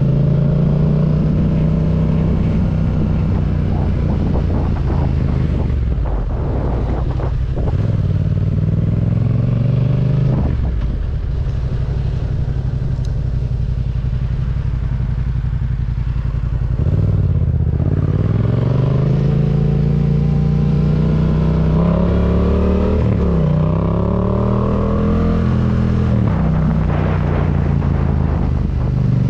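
2019 Yamaha MT-07's parallel-twin engine through a Yoshimura R77 carbon-fibre exhaust, heard from the rider's seat. The engine note falls as the bike slows and runs low for a while. From about halfway it climbs again under acceleration, with one sharp dip and recovery in pitch, and holds steady near the end.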